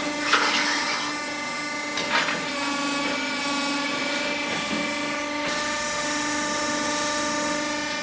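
The electric drive of an overhead barn grab crane (hay crane) whining steadily as it carries a grab-load of fresh-cut grass. There are two short bursts of noise in the first two seconds or so.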